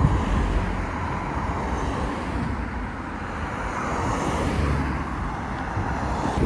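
Road traffic: a bus's engine running steadily as the bus approaches along the street, with a low rumble that swells slightly partway through.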